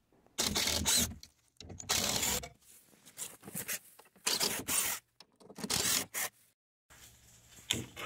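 Cordless drill backing screws out of a plywood (OSB) shipping crate, running in short bursts of under a second, about five times with brief pauses between, followed by a sharp knock near the end.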